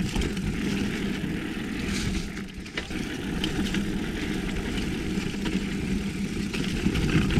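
Wind rushing over the microphone of a GoPro as a mountain bike descends a rooty trail, with tyres rolling and the bike rattling over bumps. A few sharp knocks come about two to three seconds in.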